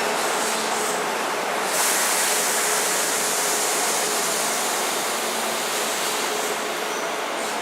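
Kintetsu electric train running along the platform: a steady rush of wheels and air with a faint motor hum, getting brighter about two seconds in.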